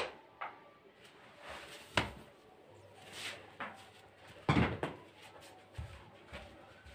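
A few scattered knocks and bumps, the sharpest about two seconds in and another about four and a half seconds in, with faint handling and shuffling noise between them.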